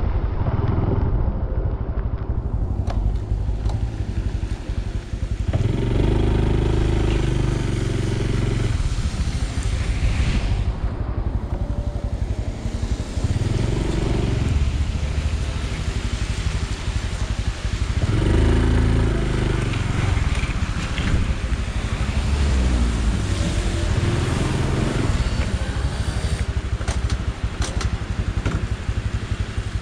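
Honda Super Cub C125's single-cylinder four-stroke engine and exhaust on the move, picking up speed four times with the engine note rising each time and easing off in between. Under it runs a steady hiss of tyres on a wet road.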